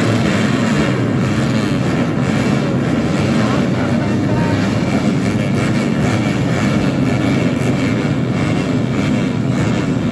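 A full start line of grasstrack dirt bikes with their engines running and revving together, a loud, dense, unbroken mass of engine sound.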